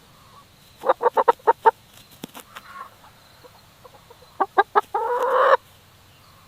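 An animal calling in short, quick pitched notes: a run of about six about a second in, a few more a little after the four-second mark, then one longer drawn-out call.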